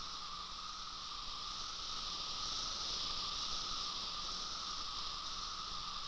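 Chorus of periodical cicadas: a steady, high, droning hiss that swells a little around the middle.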